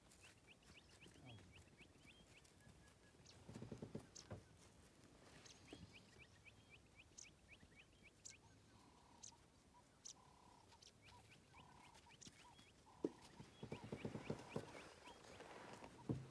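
Faint bird calls: quick series of high notes repeated several times, with short, lower single notes through the second half. Two louder, pulsing, rough bursts break in about four seconds in and again near the end.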